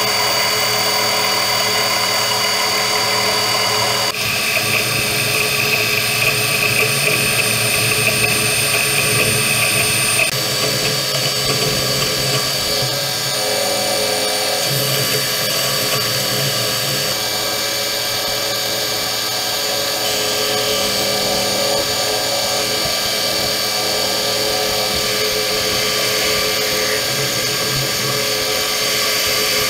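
Metal lathe running and turning a steel shaft: a steady whine from the machine with the cutting tool working the steel. The tone shifts abruptly about 4 s in and again about 10 s in.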